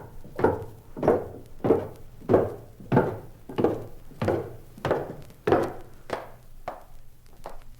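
Footsteps walking at a steady pace, about a dozen evenly spaced steps, each a sharp thud.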